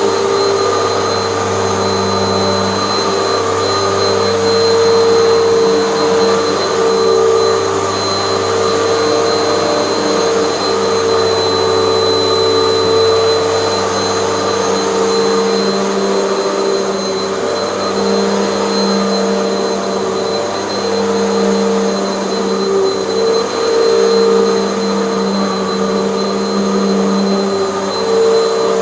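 A Hoover bagless upright vacuum cleaner running continuously while cleaning carpet, with a steady high whine over the motor hum. The hum swells and dips as the machine is worked.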